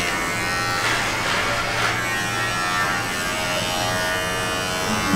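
Cordless electric hair clipper running with a steady buzz as it is passed through a thick beard.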